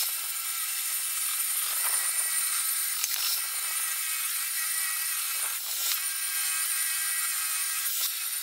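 Table saw ripping small boards lengthwise: a steady high whine from the spinning blade with cutting noise and a few brief louder moments as the wood feeds through.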